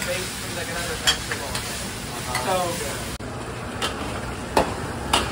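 Beef stir-frying in a hot wok: a steady sizzle, with metal tongs and spatula clanking sharply against the wok four times.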